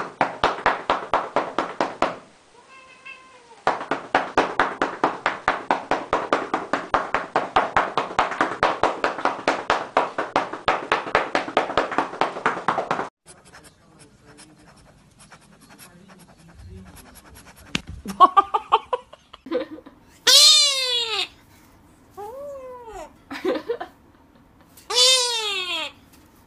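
Rapid, even pats on a cat's lower back, about four a second, with a brief meow in a short pause. After the patting stops there is a quiet stretch, then a cat meows several times, each call rising and falling in pitch.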